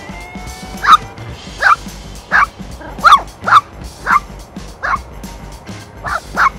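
Westiepoo puppy yipping: about nine short, high yips at irregular intervals, with background music underneath.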